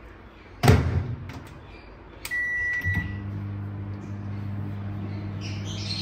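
Microwave oven door shut with a knock, a single beep as the oven is set, then the oven starts and runs with a steady low hum.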